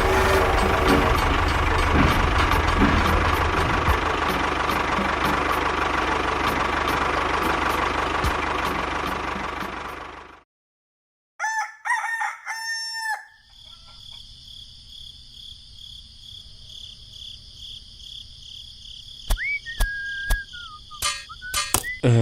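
A loud, steady mechanical noise with a low hum runs for about ten seconds, then stops abruptly. After a moment of silence a rooster crows. Faint steady high tones and a few gliding whistle-like tones follow.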